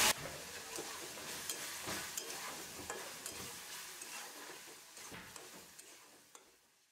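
Chopped onions sizzling in hot oil in a kadhai, stirred with a metal spatula that scrapes and taps against the pan as they are sautéed toward golden. The sizzle fades out near the end.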